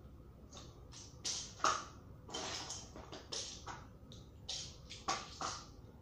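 Plastic Lego bricks clattering as they are handled and rummaged through in a pile: a string of short, irregular rattles and clicks.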